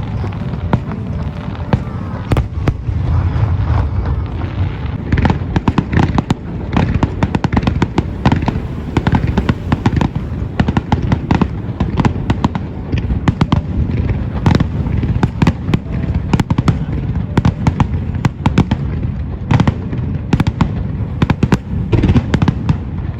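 An aerial fireworks display: a rapid, continuous barrage of shell bursts and crackling reports over a rolling low rumble of booms.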